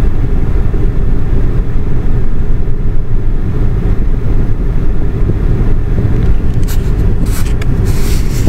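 Steady low rumble of road and engine noise heard from inside a moving taxi cab. A few light clicks or rattles come in near the end.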